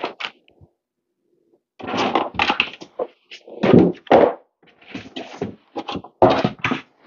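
Cardboard shipping box being handled and searched: irregular scraping, rustling and thunks of the cardboard, starting about two seconds in after a few light clicks.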